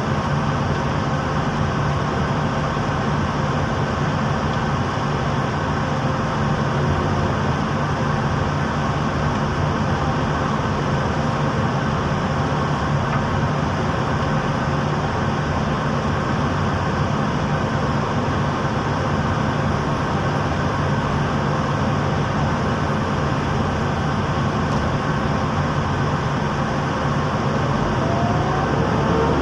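Engine of a pile-driving rig running steadily, a constant low drone with no hammer blows. Near the end its pitch starts to rise as it revs up.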